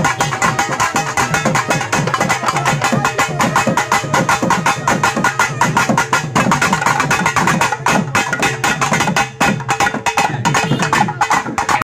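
Loud music with fast, dense drumming and a steady held note underneath; the sound cuts out abruptly for a moment near the end.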